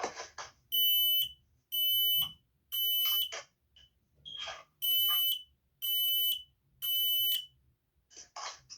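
P3010L smoke alarm sounding on test: a loud, high-pitched electronic beep in the temporal-three fire pattern, three half-second beeps, a pause, then three more.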